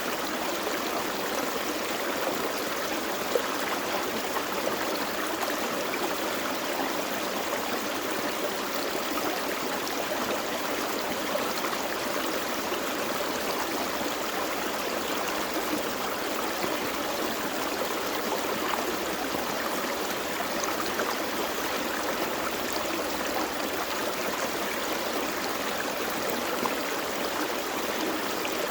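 A small forest creek flowing and burbling steadily over rocks, a constant rushing with fine splashing detail.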